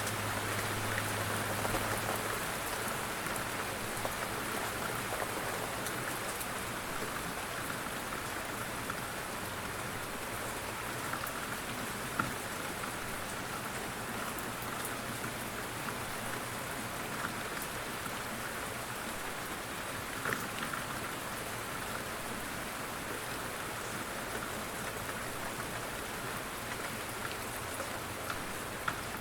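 Steady rain falling on surfaces, an even hiss with scattered individual drop ticks. A faint low hum fades out about two seconds in.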